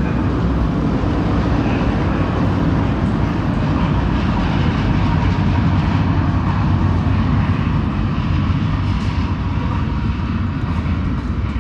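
London Underground train running away through the tunnel after leaving the platform: a loud, steady low rumble echoing along the tiled platform tunnel.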